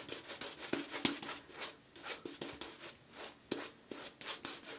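Large, dense badger-hair shaving brush being worked over the face, a soft irregular run of bristly brushing strokes and crackling lather. The lather is thin.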